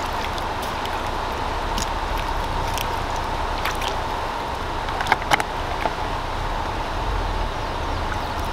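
Open-air ambience alongside an aluminium boat on a river: a steady low rumble of wind and moving water under a faint steady whine, with scattered small clicks and knocks, two sharper ones about five seconds in.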